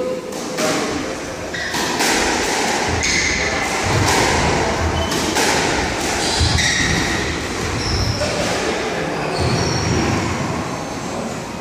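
Squash rally: the ball cracks off rackets and walls again and again, while rubber-soled court shoes squeak in short, sharp chirps on the wooden floor.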